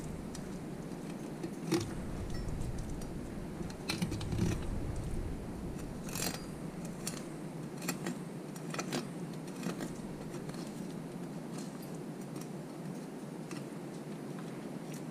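Chef's knife cutting a fillet off a tautog on a wooden cutting board: scattered light clicks and scrapes of the blade over a steady background hum.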